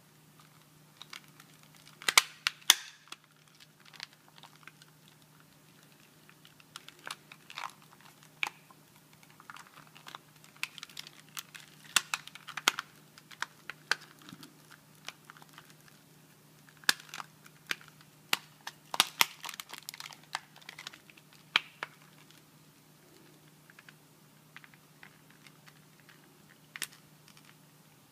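Plastic clicks, taps and snaps of a PlayStation 3 controller's shell halves being handled, pressed and worked together, with clusters of louder snaps about two seconds in and again around two-thirds of the way through. The case will not close because the battery wire is in the way.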